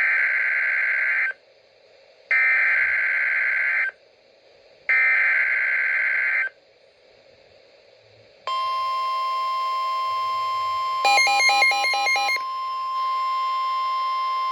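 NOAA Weather Radio emergency alert signal: three short bursts of SAME data tones, each a harsh buzzing screech about a second and a half long, with a pause between. Then the steady 1050 Hz warning alarm tone starts and holds. Briefly in the middle a second, alternating beep pattern is layered over the alarm tone.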